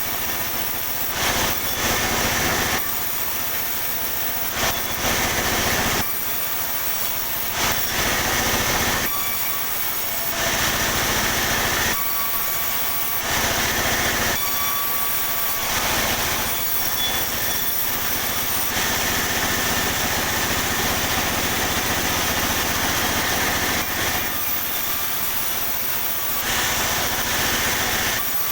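A sawmill saw running steadily while cutting pine boards. The sound swells each time the blade is in the wood and drops back between passes, about every two to three seconds, with a longer continuous cut in the second half.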